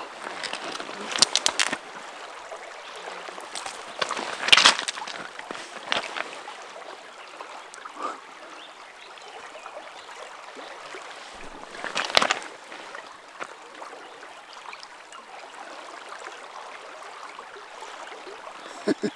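Steady rush of river water, with a few short sharp knocks or splashes at about one, four and a half, six and twelve seconds in.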